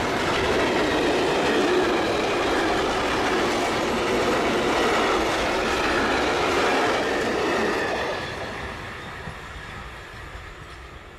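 Freight train wagons rolling past on the rails, a loud steady running noise that fades away from about eight seconds in as the train moves off.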